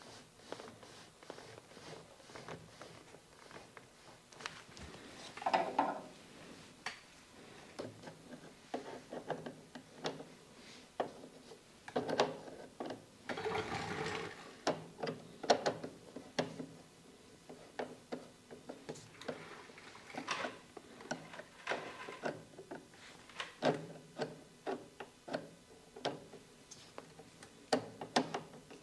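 Flexible plastic dust-collection hose being handled and pushed onto a plastic blast gate, with rustling and scraping at a few points. Runs of small clicks come from a worm-drive hose clamp being tightened with a screwdriver.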